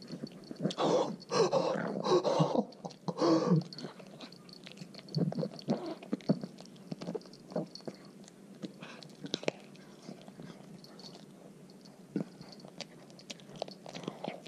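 Chihuahua gnawing a raw chicken foot held in a hand, close to the microphone: wet chewing with small crunches of bone, busiest in the first few seconds, then scattered clicks.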